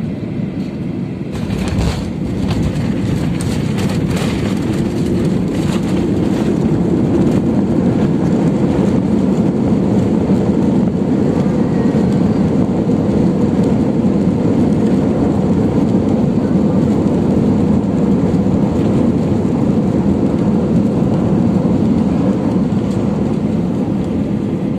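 Jet airliner touching down with a thump about a second and a half in, heard from inside the cabin. This is followed by a loud steady roar of the engines and wheels as it rolls out and slows on the runway, with a few rattles and clunks.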